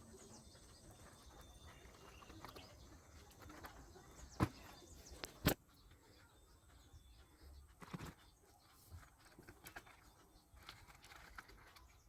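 Faint handling noise of a package being unboxed: soft rustling with a few sharp clicks, the two loudest about four and a half and five and a half seconds in.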